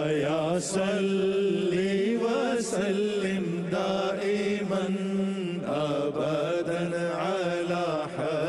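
Background music: a chanted vocal melody over a steady low drone.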